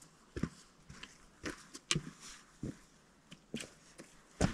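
A hiker's footsteps on a mountain trail, uneven steps about every half second, some with a sharp click.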